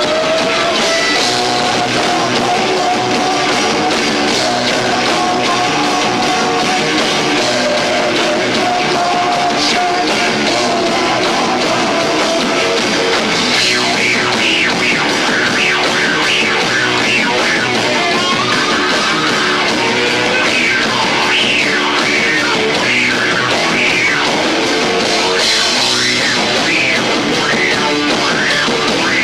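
Live rock band with two drummers playing loud and distorted, heard through a 1990s camcorder's built-in microphone. A long held note runs through the first half, then gives way to fast, busy lines over the band.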